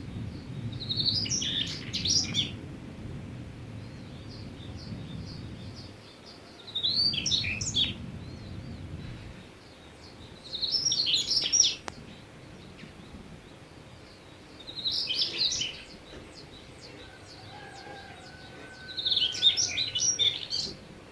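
Bird chirping in five short phrases of quick, high notes, roughly every four seconds, over a low rumble that fades out about nine seconds in.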